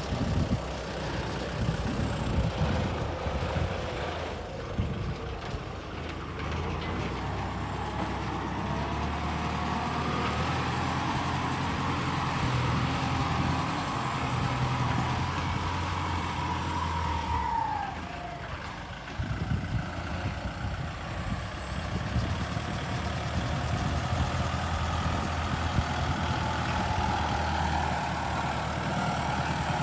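Kubota L50 turbo diesel tractor engine running under load, with a whine that slowly rises and then drops away about 18 seconds in, before the engine picks up again.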